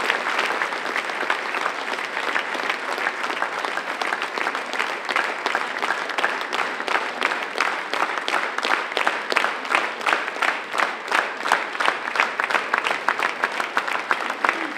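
Theatre audience applauding, a dense wash of clapping that from about halfway through falls into rhythmic unison clapping, about three claps a second.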